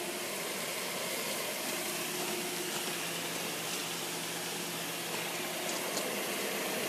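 Pool pump running steadily with water flowing through the filter plumbing: an even hum and hiss. The backwash valve has been freshly lubricated and is making no noise.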